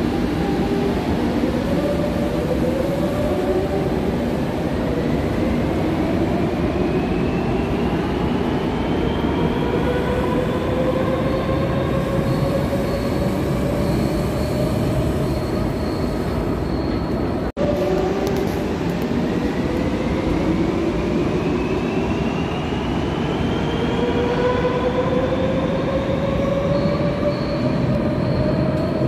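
Madrid Metro electric train accelerating: the traction motor whine climbs steadily in pitch over loud running noise. It breaks off abruptly about halfway through, then climbs again from low as another acceleration begins.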